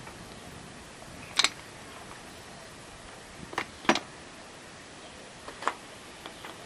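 Four sharp clicks and knocks spread over several seconds, two of them close together near the middle, as a metal well-pipe clamp is worked around PVC drop pipe. A faint steady hiss lies beneath.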